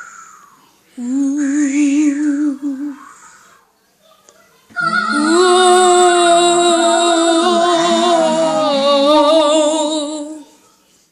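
Singing: long held notes with a wavering vibrato. One note starts about a second in and lasts about two seconds. A louder, fuller held chord follows from about five seconds in until shortly before the end.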